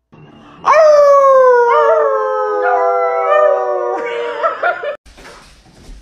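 A man and a dog howling together: long drawn-out howls that slide slowly down in pitch, then break into shorter wavering howls before stopping abruptly about five seconds in.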